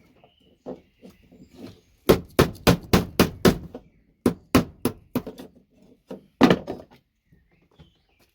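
Repeated sharp hammer strikes on scrap VGA connectors to knock them apart for their gold-plated pins: a quick run of about seven blows starting about two seconds in, a few more spaced strikes, then a last loud pair.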